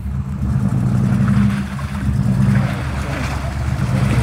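Chevy 4x4's engine revving under load as the truck tries to drive out of a mud hole, tires churning mud and water. The revs surge about a second in and again near the end.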